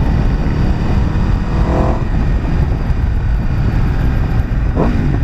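Aprilia RSV4 RF's V4 engine running steadily at road speed, mixed with heavy wind noise on the microphone.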